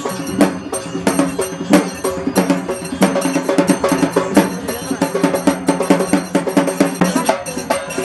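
Loud, fast folk dance music driven by drums, with sharp jingling strikes several times a second.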